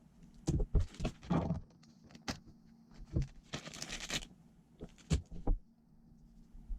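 Hand tools and small metal parts clicking, knocking and clinking while replacement rear suspension links are fitted to a Redcat Kaiju EXT RC monster truck, with a brief rasping scrape about halfway through.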